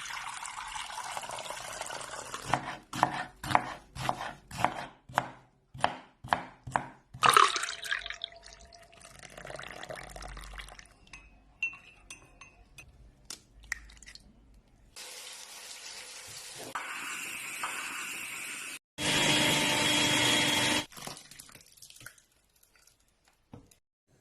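A string of kitchen cooking sounds made with utensils. It opens with a hiss like running water, then about a dozen sharp chopping strikes come in quick succession, then a few quieter clinks and scrapes. After that comes a stretch of steady hissing noise, loudest for about two seconds near the end.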